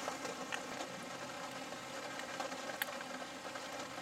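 Steady low hum inside a stopped vehicle with its engine running, with a couple of faint ticks.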